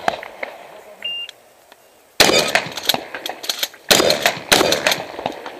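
Shot-timer start beep, a short high tone about a second in, then three loud shotgun shots, the first about two seconds in and the last two close together near the end.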